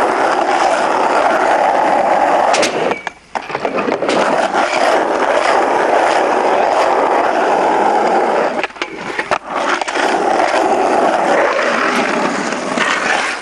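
Skateboard wheels rolling over rough asphalt, a loud steady rumble that drops away briefly about three seconds in and again around nine seconds, with a few sharp clicks.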